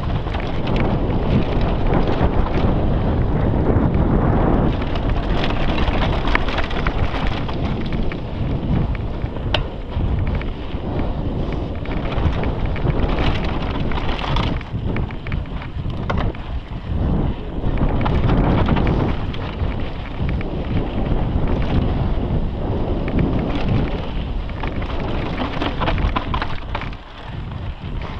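Wind buffeting the camera microphone as a mountain bike descends a dry dirt singletrack at speed, with tyres rolling over loose dirt and scattered knocks and rattles from the bike over bumps.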